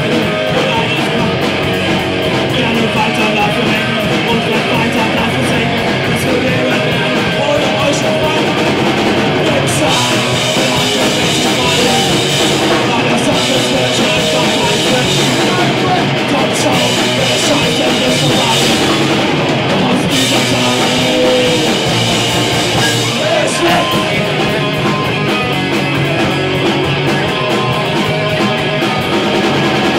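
Live rock band playing loud and steady: electric guitars, bass guitar and drum kit.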